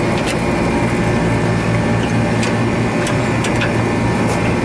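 Rooftop HVAC unit running: a steady mechanical hum with the rush of a condenser fan, and a few faint ticks.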